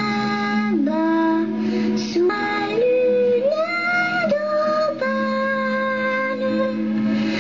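A voice singing a slow song in French over instrumental backing, holding long notes that step up and down.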